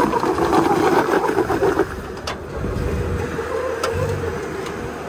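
A Jeep Wrangler's engine working as the Jeep crawls over bare slickrock. It is louder and rougher for about the first two seconds, then settles into a quieter low drone.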